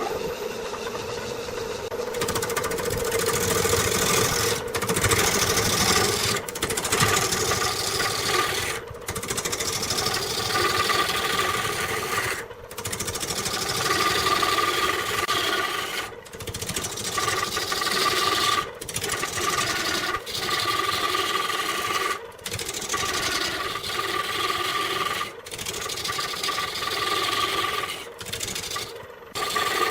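Wood lathe running with a turning tool cutting the spinning wood: a steady hum under a continuous rasping, scraping cut that breaks off briefly about every two seconds.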